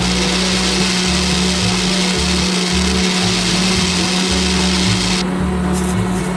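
Background music with a repeating bass pattern, and over it a small motor running with a high whirring hiss that cuts off suddenly about five seconds in.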